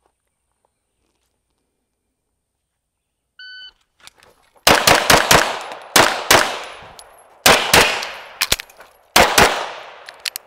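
A shot timer gives one short beep, then a semi-automatic pistol fires about ten rapid shots in quick pairs, each ringing out. A longer gap with a few faint clicks comes before the last pair, where the pistol is reloaded on the move.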